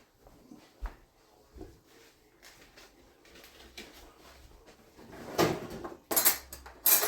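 Kitchen clatter: a few light knocks, then a run of louder clatters and scrapes in the last two seconds as a hot baking pan is handled.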